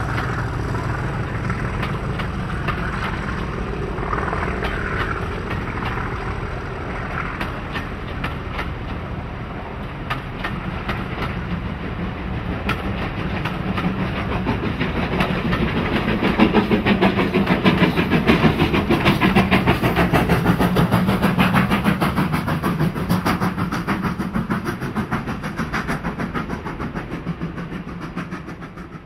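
Steam-hauled heritage train passing: a steady rumble with a fast, even rhythmic beat that swells to its loudest past the middle and fades away near the end.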